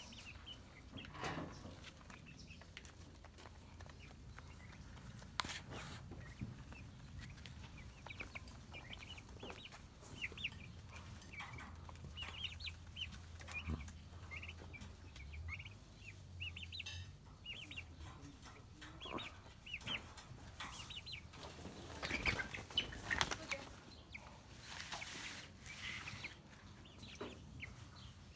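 A flock of young white chickens calling softly: many short high cheeps and clucks scattered throughout. There are a few brief rustles and knocks, busiest a little over twenty seconds in.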